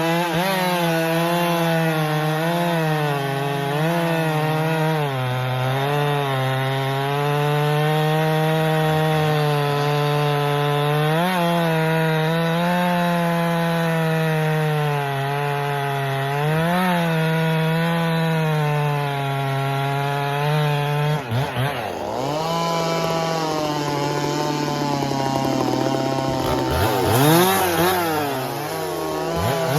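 Two-stroke chainsaw running at full throttle while cutting firewood, its engine pitch sagging and recovering as the chain bites into the wood. About 21 seconds in the revs drop, then the saw is throttled up and down several times.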